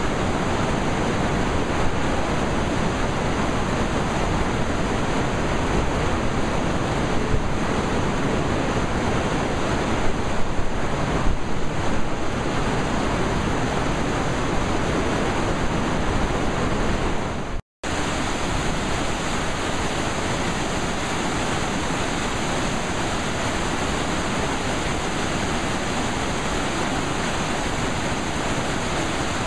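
Flooded James River rapids rushing: a loud, steady roar of churning whitewater. It cuts out for an instant about two-thirds of the way through, then carries on unchanged.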